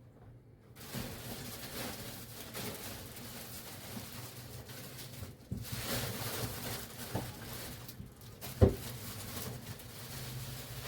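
Quiet handling noises in a small room over a steady low hum, with a small click about seven seconds in and one sharp knock about eight and a half seconds in.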